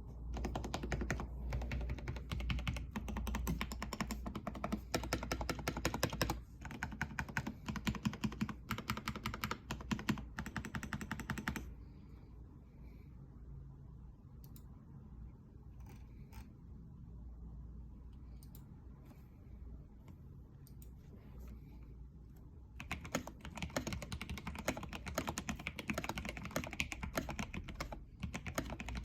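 NJ80 mechanical keyboard with a brass plate, stock Gateron Yellow Pro linear switches and XDA-profile keycaps, typed on quickly in a steady stream of key clacks. About twelve seconds in the typing stops, leaving only a few single keystrokes, and it resumes at full speed about ten seconds later.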